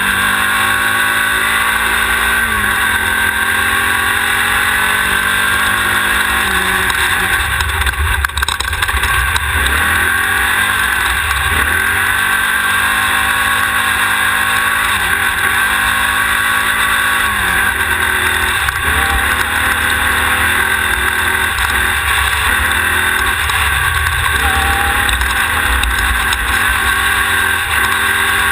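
Class 1600 desert race buggy's air-cooled Volkswagen engine running hard. The engine note climbs and drops several times with shifts and throttle changes, over a steady rushing noise of wind and terrain.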